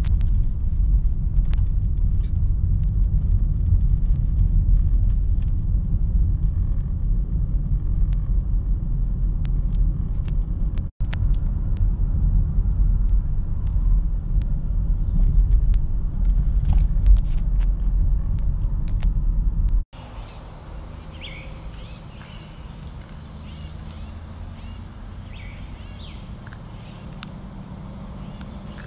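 A loud, steady low rumble, broken by two abrupt cuts. After the second cut it gives way to quieter outdoor ambience with small birds chirping over and over in short, high, falling notes.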